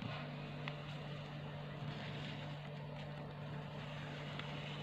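A steady low hum that starts suddenly at the outset, with a few faint clicks and rustles of a paper sheet being folded and creased by hand.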